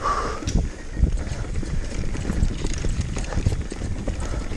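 Downhill mountain bike clattering down rough trail: a dense run of irregular knocks and thumps, over a steady low rumble of wind on the microphone.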